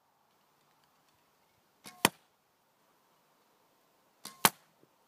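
Two arrows shot from a 40-pound bow. Each is a faint release snap followed a split second later by a loud, sharp smack as the arrow strikes a cardboard target.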